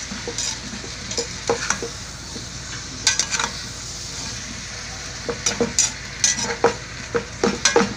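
A flat metal spatula scrapes and knocks against the inside of a large metal stockpot while stirring chicken pieces sautéing with garlic, ginger, onion and tomato, over a steady sizzle. The scrapes come in quick clusters of strokes, busiest in the second half.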